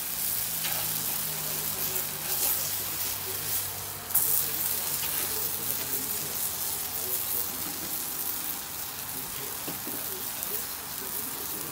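Pupusas sizzling on a hot flat-top griddle, with short scrapes and taps of a metal spatula on the plate as they are pressed and turned, the loudest a sharp clatter about four seconds in. A faint low hum runs underneath.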